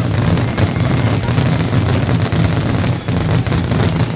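Fireworks going off in a dense, continuous barrage of rapid bangs and crackling over a low rumble.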